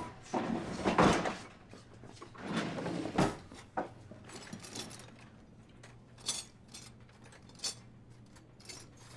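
Rummaging in a low wooden sideboard cupboard: a few louder knocks and scrapes in the first three seconds, then scattered light clinks of glassware being moved about.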